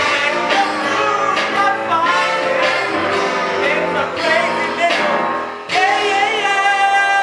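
Musical theatre singing with band accompaniment. About five and a half seconds in, a voice holds one long note with vibrato.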